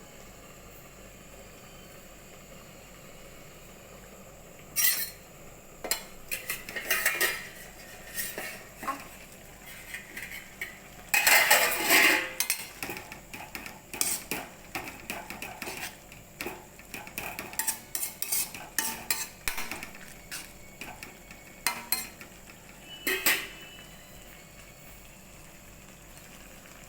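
Metal utensils clattering and scraping against a kadhai and its covering plate in irregular bursts, loudest about eleven to twelve seconds in, over a faint steady sizzle of Maggi noodles cooking.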